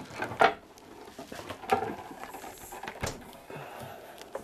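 Solid maple drop-leaf table being turned upside down by hand onto a padded bench: a few scattered wooden knocks and bumps, some with a short creak.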